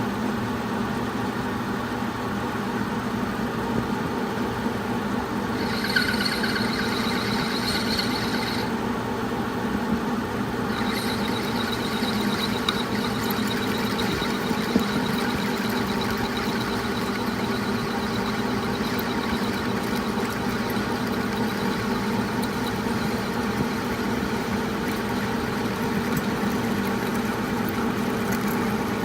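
Metal lathe running steadily while turning an aluminum part, a constant motor and spindle hum. A thin high-pitched whine comes in about six seconds in, drops out, and returns steadily from about eleven seconds on.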